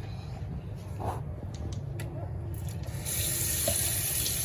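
Cold water from a kitchen tap running into the sink, starting about three seconds in as a steady hiss, with a few light knocks and clicks before it.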